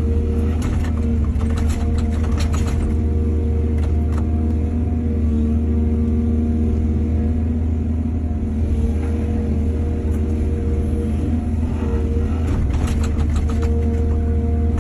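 Diesel excavator engine running steadily with a deep hum. Bursts of metallic clatter come in the first few seconds and again near the end.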